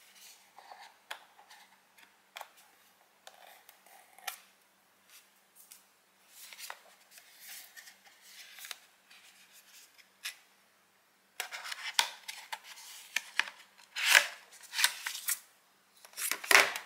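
Hands opening the cardboard box of an Apple Thunderbolt 3 cable: scattered light clicks, scratching and rubbing of card. Louder rustling and scraping come in the last five seconds as the inner tray with the coiled cable comes out.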